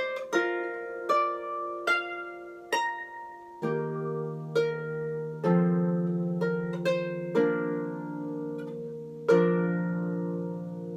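Non-pedal (lever) harp playing the closing bars of a piece: a few single plucked notes, then ringing chords over a low bass, ending on a final chord about nine seconds in that is left to ring.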